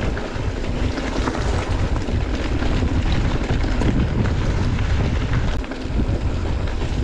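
Wind buffeting the microphone of a camera on a mountain bike riding down a trail, mixed with tyre roll on the dirt and gravel and short rattles from the bike over bumps.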